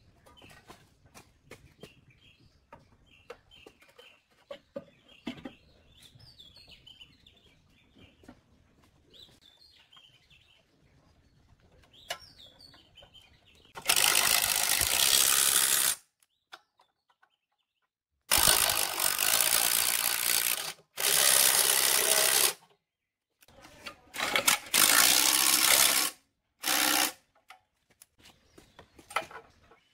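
A handheld power driver running in the bolts of a plate compactor's handle frame, in five loud bursts of about half a second to two and a half seconds in the second half. Before that, faint clicks of metal parts being handled and birds chirping.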